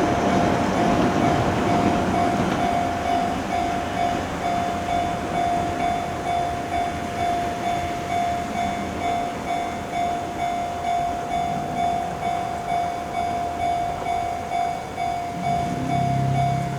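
Japanese railway level-crossing alarm bell ringing its repeating 'kan-kan' at an even pulse. Under it, a train's rumble fades away over the first few seconds. A low steady hum comes in near the end.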